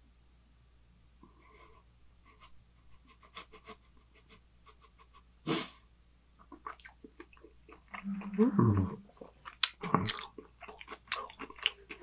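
Close-miked mouth noises of a man chewing with his mouth closed: small wet clicks and smacks, then a short louder noise about halfway through. In the last few seconds come a couple of low vocal sounds that fall in pitch.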